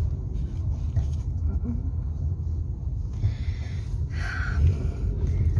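Car in motion heard from inside the cabin: a steady low road and engine rumble, with a brief softer hiss about three to four seconds in.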